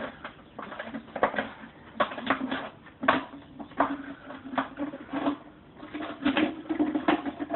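A plastic bottle being cut around its circumference, giving a run of irregular sharp snips and crackles of the thin plastic.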